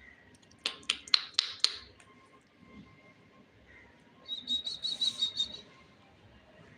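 Pet parrot calling: five short, sharp calls in quick succession about a second in, then a fast run of high chirps about four seconds in.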